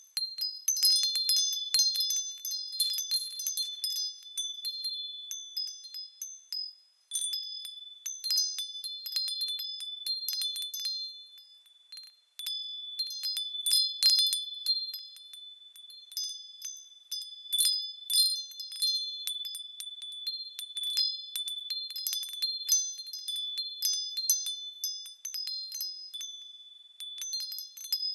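Small high-pitched bells jangling together in quick, irregular strikes, their clear tones ringing on and overlapping. The ringing dies away almost to nothing twice, then starts again suddenly.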